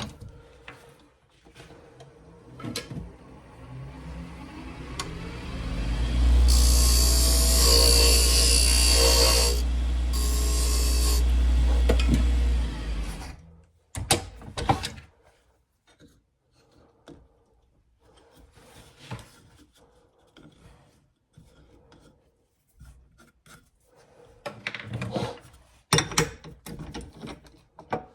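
Wood being worked by hand, with rubbing, scraping and light knocks. About four seconds in, a power tool's motor runs with a steady low hum for about eight seconds while cutting or sanding the wood with a loud hiss, then stops.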